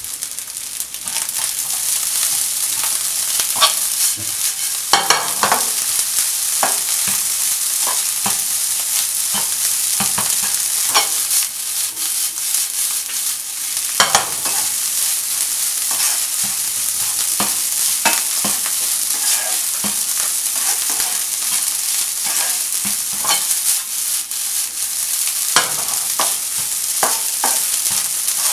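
Fried rice with mixed vegetables sizzling in a hot nonstick pan while a spatula stirs and tosses it. Frequent short scrapes and clicks of the spatula against the pan run over the steady sizzle.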